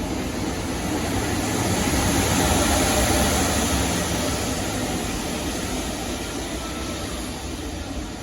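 A train passing close by, its rumble and wheel noise on the rails swelling to a peak about three seconds in and then slowly fading.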